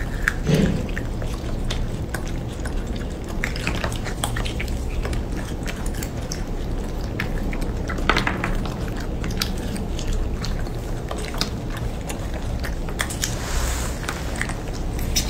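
Two baby macaques chewing and biting on food held in their hands: a run of small, irregular mouth clicks and crunches, the sharpest about halfway through, over a low steady hum.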